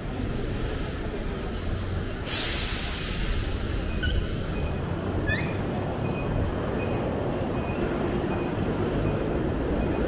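Tobu Tojo Line train running on the rails, a steady low rumble with a short loud hiss about two seconds in and brief rising wheel squeals around four and five seconds in. A faint high tone repeats about twice a second through the second half.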